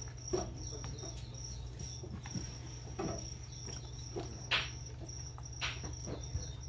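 Crickets chirping in a high, pulsing trill. Scattered taps and scrapes from a cat's paws pawing at the crickets in a clear plastic bin.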